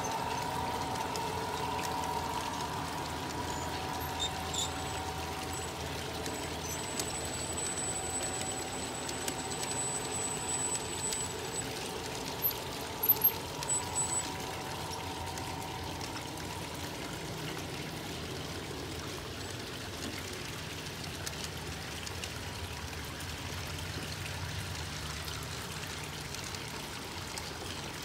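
G-scale freight cars rolling past on garden railway track: a steady rolling rush, with a faint high ringing tone that fades out about halfway through. A few sharp clicks come about thirteen seconds in.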